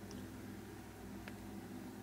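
Quiet room tone: a low steady hum, with a faint tick at the start and another a little over a second in.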